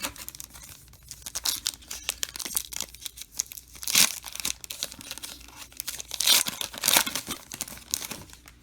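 Plastic-foil trading card pack wrapper being torn open and crinkled: a run of crackling with louder rips about halfway through and again near three quarters through.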